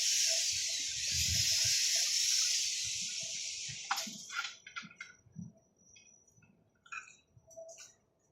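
A loud steady hiss, like spray or rushing air or water, with low thuds under it. It stops abruptly with a click about four seconds in and is followed by scattered light clicks and knocks.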